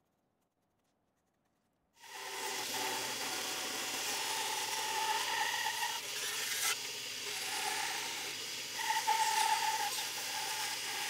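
Near silence for about two seconds, then a bandsaw running and cutting through a thick laminated wooden seat blank, a steady rasping noise whose tone wavers as the piece is fed and turned through the blade.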